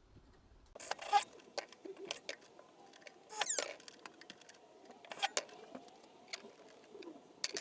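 Workshop handling noises: a series of light clicks and knocks from parts and tools being moved, with a short scraping rasp about three and a half seconds in.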